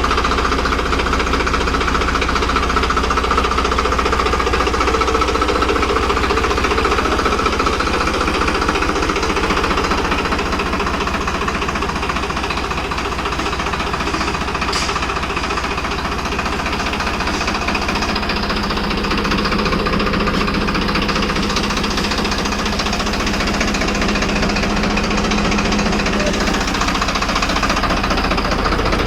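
Farmtrac 60 PowerMaxx tractor's diesel engine running steadily with a rapid clattering beat.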